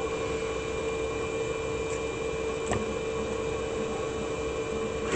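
Steady electrical hum and hiss of workbench equipment, with a faint tick partway through and a small click at the end.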